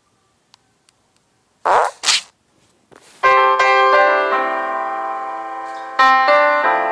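Two short noisy bursts about half a second apart, then keyboard music with ringing, slowly fading piano-like chords, a fresh chord striking about six seconds in.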